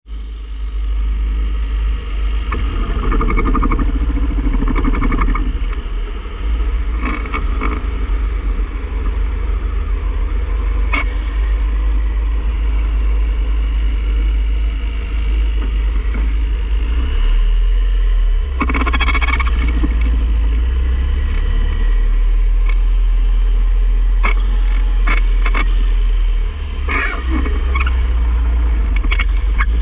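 A 2006 Mazda 3 manual hatchback's drivetrain running with a steady low rumble, broken by irregular sharp clicks and knocks from the worn passenger-side inner CV joint of the front axle.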